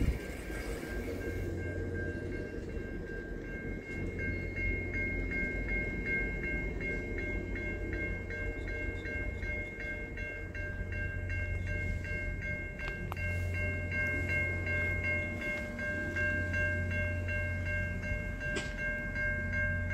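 Stainless-steel passenger cars of a train rolling past, giving a steady low rumble of wheels on rail. A level-crossing warning bell rings steadily over it.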